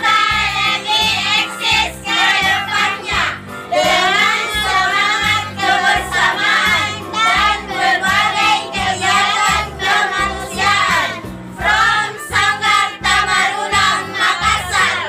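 Group of women's and children's voices singing together over backing music with a steady bass beat.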